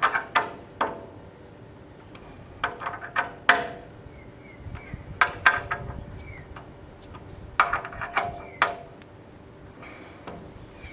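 Hand tool clicking and knocking against the metal hinge hardware of a frameless glass pool gate while the hinges are tightened. The clicks come in four short bursts of three to five sharp clicks, each with a brief metallic ring.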